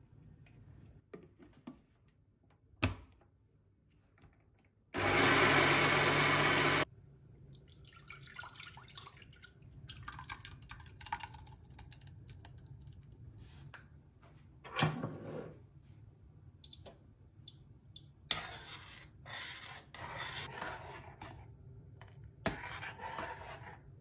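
Countertop blender running in one short burst of about two seconds, blending cooked red rice with kale and coconut milk. Around it come quieter kitchen handling sounds: a few knocks, and the thick green blend being poured and scraped into a steel saucepan.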